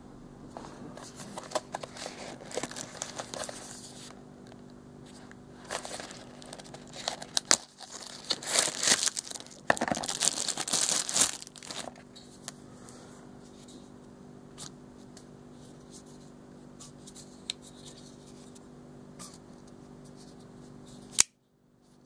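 Plastic wrapping crinkling and tearing as a knife is unpacked from its box, loudest in the middle, then a quieter stretch with a few small handling clicks from the folding knife. A single sharp click comes shortly before the end.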